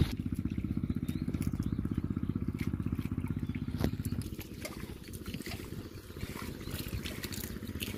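Engine-driven water pump running steadily with a fast, even chugging as it drains a small pond; it is a little quieter from about halfway. Scattered sharp clicks sound over it.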